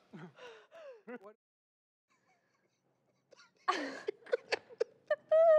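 Faint whooping voices trail off, then about two seconds of near silence, then people laughing in short breathy bursts that end in a drawn-out voiced laugh.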